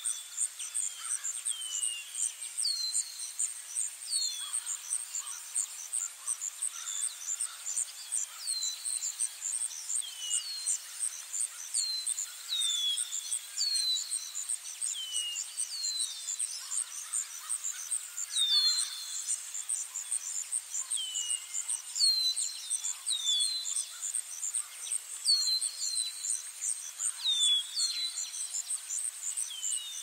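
Forest ambience: a steady, high, rapidly pulsing insect chorus under birds calling with short downward-sliding whistles that repeat every second or two.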